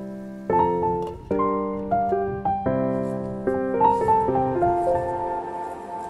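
Background piano music: struck chords under a slow, simple melody, each note ringing and dying away, growing quieter near the end.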